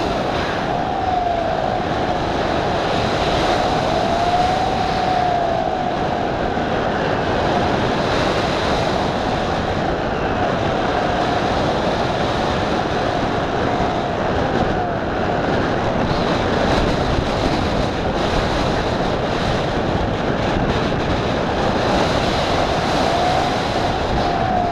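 Steady wind rushing over the onboard camera's microphone on a Twinstar twin-motor electric RC plane in flight. A faint motor whine rises and falls in pitch with the throttle now and then.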